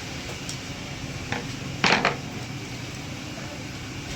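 A short metallic clatter about two seconds in, like metal parts or a tool knocking against metal, preceded by a small click, over a steady low hum.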